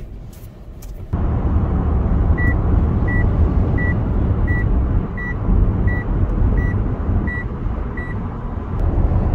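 A car's running and road noise heard from inside the cabin, rising abruptly about a second in. Over it, the car's high warning beep sounds nine times at an even pace, about every 0.7 s, then stops.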